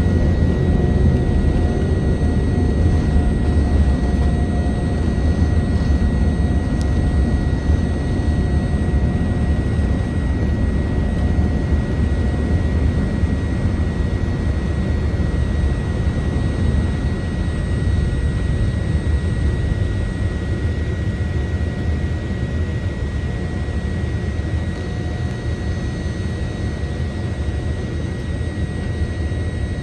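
Boeing 787-10 airliner's jet engines during takeoff: a loud, steady low rumble with a steady high whine on top, slowly getting quieter.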